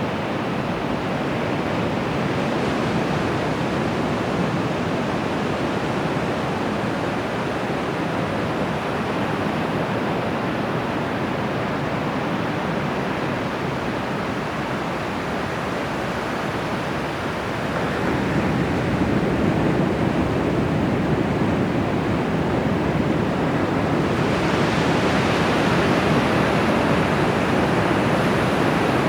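Bay of Bengal surf breaking and washing on the beach: a continuous rush that swells louder a little past halfway and turns hissier near the end.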